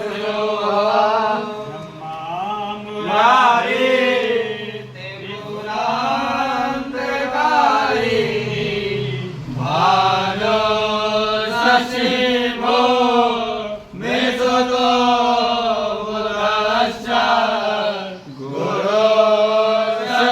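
Hindu devotional chanting: a voice sings a hymn in long, melodic phrases, with brief pauses every few seconds.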